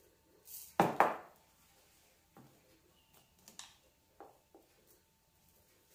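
Dry long-grain white rice poured from a measuring cup into a sock stretched over a cup: two loud, short rushes of grains about a second in, then a few light clicks and taps.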